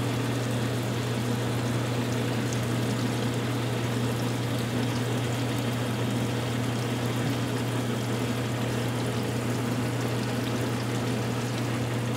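Wilton horizontal bandsaw running through a cut in bar stock with its coolant flowing: a steady motor and blade hum with a constant trickling wash of coolant over it.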